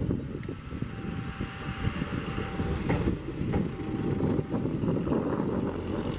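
KAI track-inspection rail car (lori) rolling slowly past close by, its motor running under a rough low rumble from the wheels on the rails. A few sharp knocks come about two, three and three and a half seconds in, as the wheels cross rail joints.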